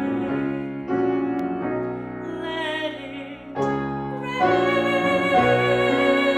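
A woman singing a show tune with piano accompaniment, with vibrato on a note in the middle. A louder, fuller sustained passage comes in about four seconds in.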